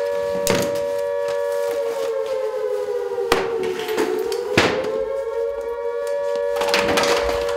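Alarm siren wailing steadily, its pitch sagging slowly and then rising again about halfway through. A few sharp knocks sound over it.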